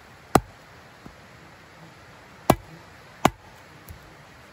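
Three sharp knocks of a hard strike, the second about two seconds after the first and the third under a second later, with two faint taps between them, over a steady hiss.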